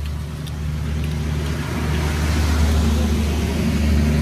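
A motor engine running with a steady low hum that grows louder over the few seconds.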